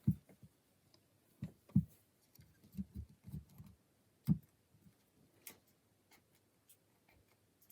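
Rake pick and tension tool working the pin stack of an old brass Burg 217/50 padlock: irregular soft clicks and dull knocks, bunched in the first half and thinning out toward the end.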